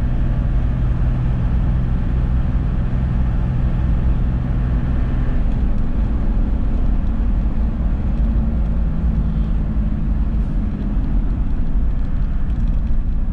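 Toyota Land Cruiser engine and road noise heard from inside the cab while driving at a steady speed. The engine note changes about five seconds in.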